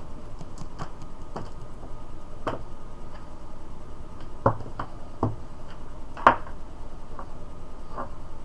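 Light clicks and taps of small test probes, connectors and cables being handled and set down on a desk, with three louder knocks in the middle, over a steady background hiss.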